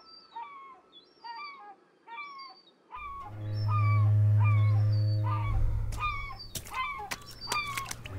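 Repeated short animal calls, about two a second, each bending up and then falling. About three seconds in a steady low hum comes in and becomes the loudest sound, and sharp clicks crackle through the last couple of seconds.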